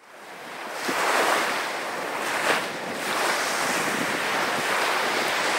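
Ocean waves surging and washing, fading in over the first second and then rising and falling in slow swells of rushing water.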